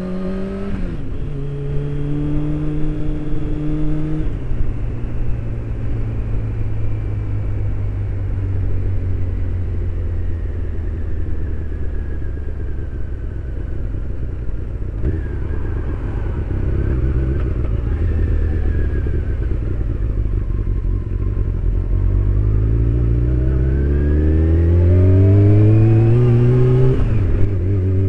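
Honda CBR600 motorcycle's inline-four engine heard from inside the rider's helmet, over wind and road rush. The engine note shifts a few times early on and holds fairly steady through the middle. Near the end it rises steadily for several seconds, then drops suddenly at a gear change.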